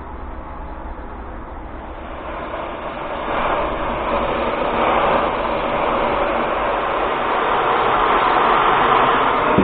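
Oxy-fuel cutting torch hissing as it flame-cuts steel, growing louder about three seconds in, over a steady low hum.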